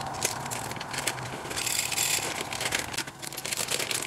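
Plastic packaging crinkling and rustling in the hands as packets are handled, a dense run of irregular crackles.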